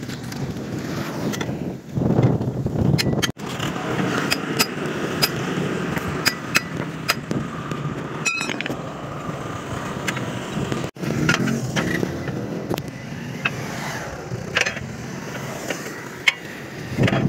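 Steel tyre levers clinking and scraping against a steel wheel rim as a tractor tyre's bead is pried off, in a string of short sharp metallic clicks over a steady low rumble.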